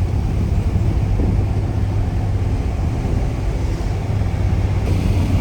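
Car driving along, a steady low engine hum over road noise.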